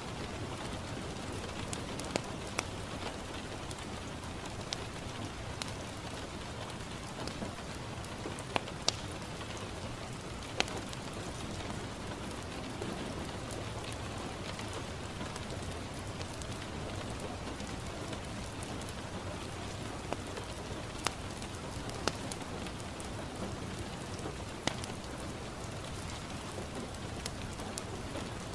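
Steady rain falling on a window, mixed with a crackling wood fire in a fireplace. A constant hiss of rain is broken by about a dozen scattered sharp pops.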